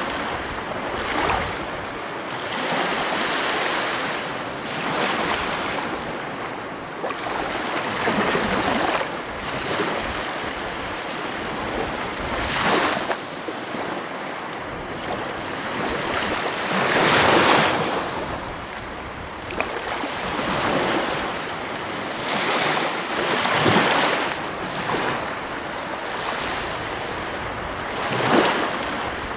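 Heavy ocean waves breaking on the coast: a continuous wash of surf that swells and ebbs every few seconds, with the loudest breaker about two-thirds of the way through.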